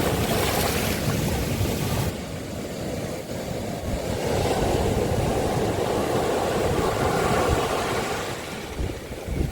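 Sea waves washing onto a beach: the surf hiss drops abruptly about two seconds in, then another wave swells in and fades away near the end, with wind rumbling on the microphone.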